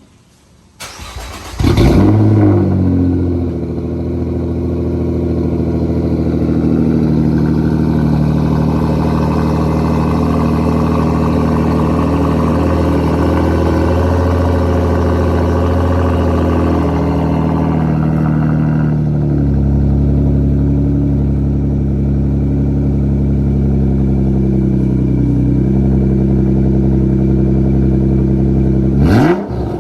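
Nissan GT-R's twin-turbo V6 through a 4-inch titanium straight-pipe exhaust, starting about a second in with a short loud flare, then idling high and settling to a lower, steadier idle about two-thirds through. It is given a couple of quick revs near the end.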